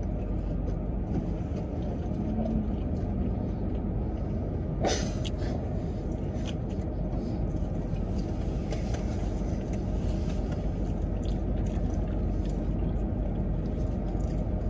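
Steady low rumble inside a parked car's cabin, with one sharp click about five seconds in and a few faint ticks.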